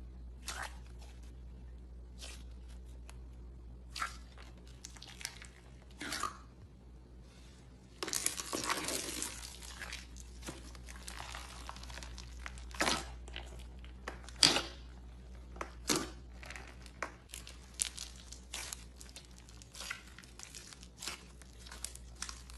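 Slime being squeezed and pressed by hand, giving scattered sharp crackles and pops, with a denser spell of crunching about eight seconds in.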